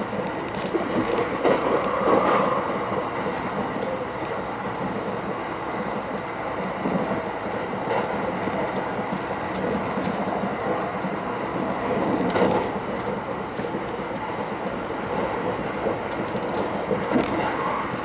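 Running noise inside the cabin of a Thunderbird limited express electric train travelling at high speed: a steady rumble and rush of wheels on rail and air, swelling briefly a couple of times.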